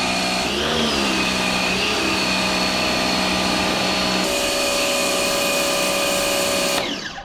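Bosch Aquatak 110 electric pressure washer's motor and pump running under load, with the water jet hissing from the lance. Its tone wavers in the first couple of seconds, shifts about four seconds in, and cuts off suddenly near the end.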